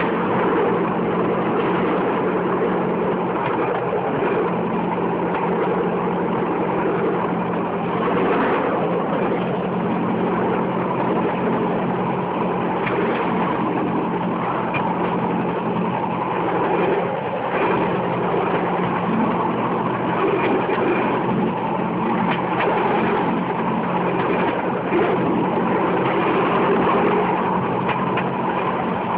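Bamboo train's small engine running steadily as the bamboo platform rolls along the rails, with a few short knocks from the wheels and track.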